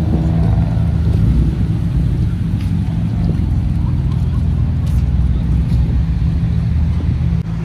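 A car engine running with a steady low exhaust rumble.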